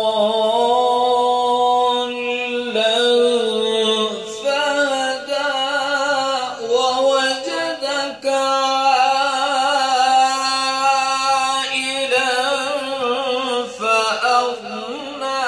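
A man reciting the Quran in the melodic, drawn-out tajweed style, unaccompanied. He holds long notes with wavering ornamental turns and breaks off briefly for breath a few times.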